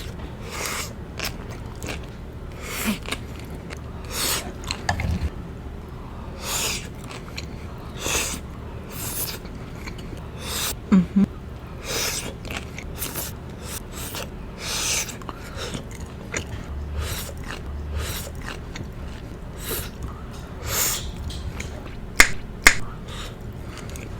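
Crunching and chewing of crisp cucumber with chicken jalapeño popper filling, a crunchy bite or chew roughly every second. Two sharp clicks come near the end.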